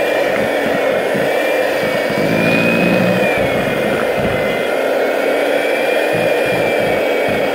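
Electric mixer running steadily, beating icing sugar into butter for buttercream, with a high motor whine that drifts slightly up and down in pitch.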